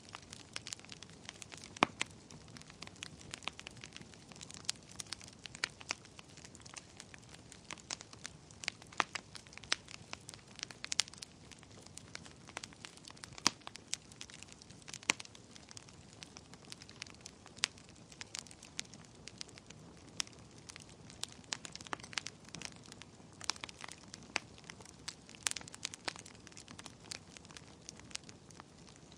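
Wood fire burning in a fireplace, crackling with irregular sharp pops over a soft steady hiss.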